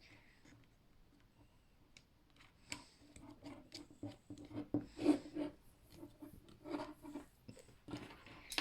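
Meccano Junior construction-kit parts being handled and fitted together: irregular small clicks, scrapes and rubbing, sparse at first and busier from about three seconds in.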